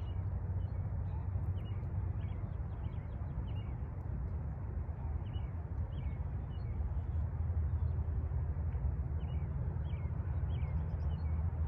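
Outdoor ambience: a steady low rumble with small birds chirping in short, falling notes again and again in the background.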